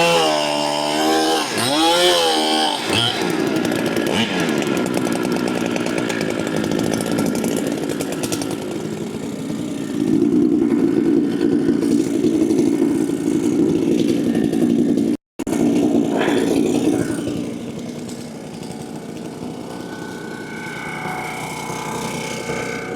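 Large Holzfforma clone chainsaw revving up and down for a few seconds, then running under load as it cuts through a log; the sound breaks off for an instant around the middle and drops to a lighter, quieter run near the end.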